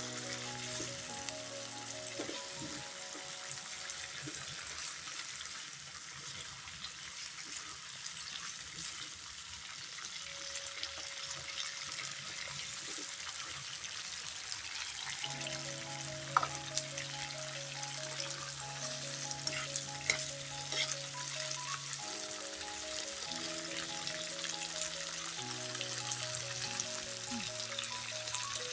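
Beef offal sizzling as it is stir-fried in a pan, a steady crackling hiss with a few sharp clicks from the stirring. Soft background music plays alongside.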